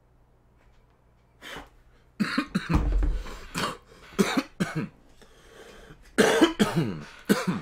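A man coughing from bong smoke: one short cough, then a run of coughs, then a second fit of coughing near the end.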